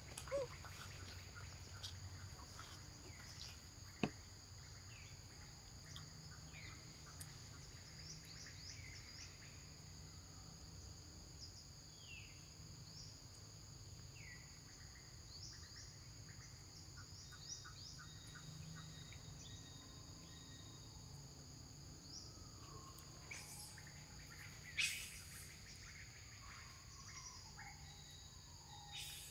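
Steady high-pitched insect drone with scattered short bird chirps. A sharp click comes about four seconds in, and a brief louder sound about 25 seconds in.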